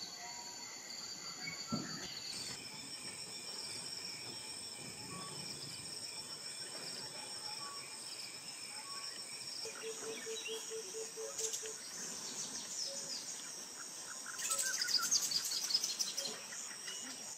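Tropical rainforest ambience: steady high-pitched insect trilling with scattered bird calls. About ten seconds in comes a short run of low, evenly spaced notes, and near the end a louder burst of rapid chattering calls.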